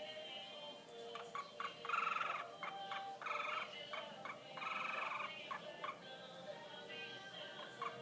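Cockatiel calling and singing: a run of short chirps broken by three longer, harsh, buzzy calls about two, three and a half, and five seconds in.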